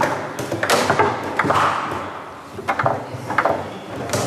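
Foosball in play: a run of sharp, irregular clacks as the ball is struck by the plastic figures and knocks against the table, with the rods rattling between hits.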